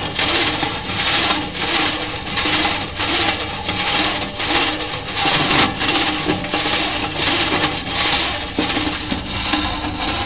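YK160 oscillating granulator running, its barred rotor swinging back and forth to force granulate material through the screen. It makes a rhythmic grinding swish, about three strokes every two seconds, over a constant low motor rumble.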